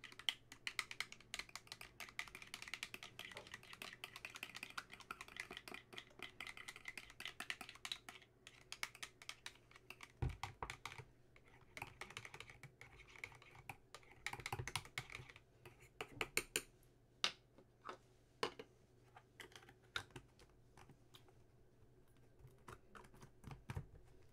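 Thin metal chopstick stirring a vodka and aloe vera gel mixture inside a small plastic bottle, making rapid clicking and scraping against the bottle's walls. After about fifteen seconds the sound thins out to scattered clicks and taps.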